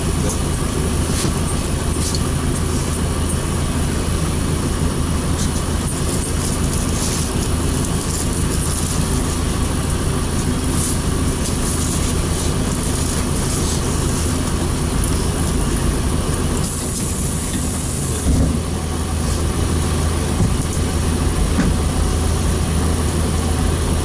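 PAZ-32054 bus engine idling steadily, heard inside the passenger cabin while the bus stands still. A short hiss and then a single knock come about three-quarters of the way through.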